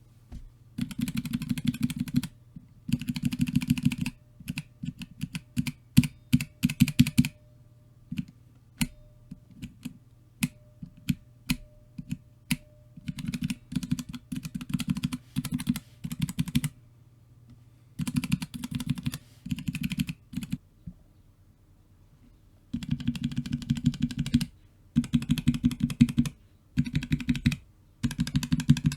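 Outemu Ice Purple tactile mechanical keyboard switches on a macropad being pressed: runs of rapid keystrokes lasting a second or two, separated by short pauses, and a stretch of slower single presses from about 4 to 13 seconds in.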